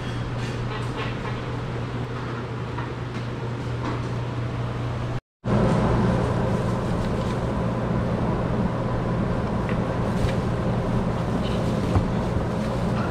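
Steady low mechanical hum, like a motor or fan running. It cuts out for a moment about five seconds in and comes back a little louder, with a few faint knocks near the end.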